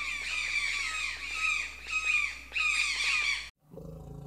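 Collared aracari, a small toucan, calling: a rapid series of sharp, squeaky calls, each falling in pitch. They cut off suddenly about three and a half seconds in, followed by a faint low hum.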